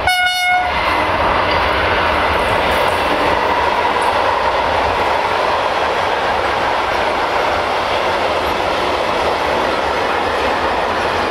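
A short single-tone horn blast from an OSE class 120 electric locomotive, then the steady noise of a long freight train of covered wagons running past, wheels on the rails.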